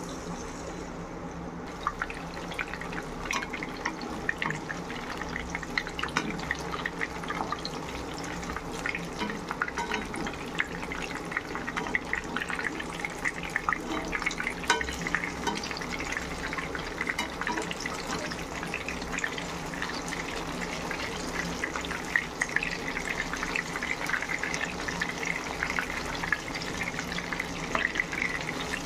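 Masala-coated fish slices shallow-frying in hot oil: steady sizzling with dense crackling. It gets louder about two seconds in as another piece goes into the pan, and the crackling grows denser toward the end.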